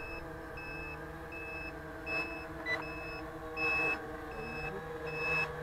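Toy quadcopter's small electric motors and propellers whirring steadily, with a short high electronic beep repeating about every three-quarters of a second: a low-battery warning.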